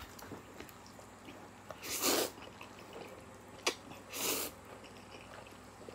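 A person slurping Samyang spicy instant noodles: two short, loud slurps about two seconds apart.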